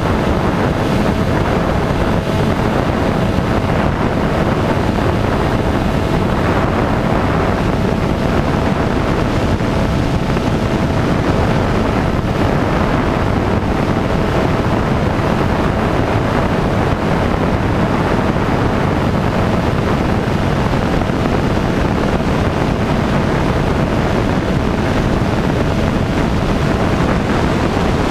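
Light aircraft's engine and propeller running steadily in flight, heard through heavy wind rush on an outside-mounted camera's microphone, with a faint steady tone underneath.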